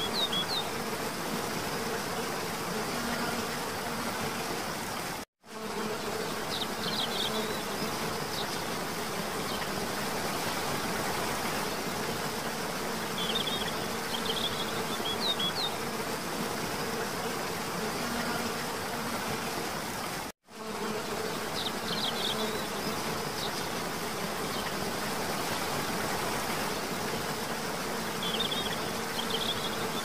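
Waterfall rushing steadily, with short high bird chirps every few seconds and a low insect buzzing hum. The sound cuts out completely for a split second twice, about five and twenty seconds in, where the looped recording restarts.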